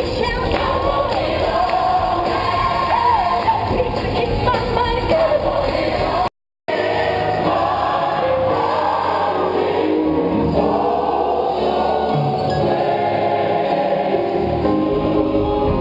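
Live gospel music: a solo singer's melodic runs over instrumental backing, then a large gospel choir singing full chords. The sound drops out completely for a moment about six seconds in.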